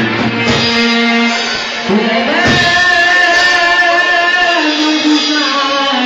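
Live Egyptian shaabi music: a male singer performing a mawwal over a band's instrumental accompaniment, with a long held note in the middle.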